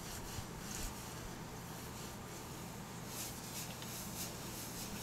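Faint swishing of a folded paper towel with acetone rubbed back and forth over a fiberglass countertop, wiping it clean before bonding.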